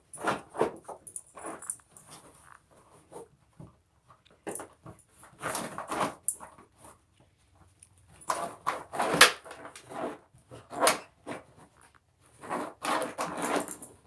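Dogs pawing and digging at the fabric flaps of an iDig plastic dig-bowl toy: scratching and rustling in irregular bouts with short pauses between them.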